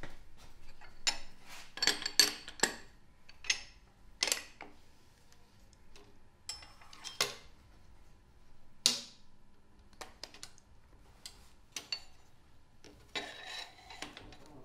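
Irregular small metallic clicks and clinks of hand-set lead type and spacing material being picked up, set down and pushed together on a composing bench.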